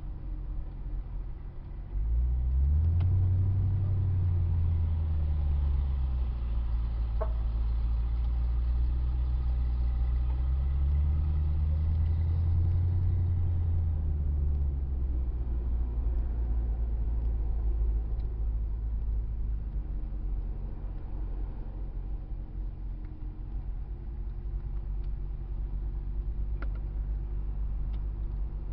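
Car engine coming in suddenly about two seconds in, revved up and back down twice, then running more steadily at a lower level.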